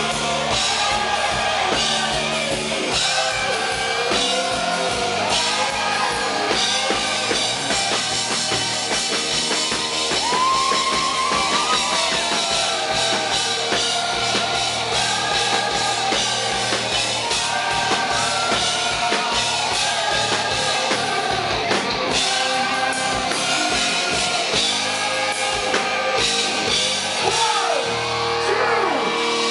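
Live rock band performing with a male lead vocal: drum kit, guitars and a sung melody.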